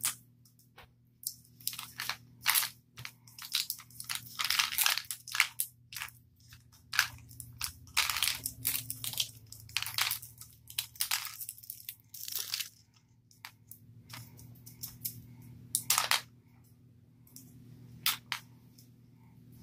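Crinkling, crackling plastic packaging on a Mini Brands toy capsule ball being picked and peeled open by hand, in irregular bursts that are busiest in the first two-thirds.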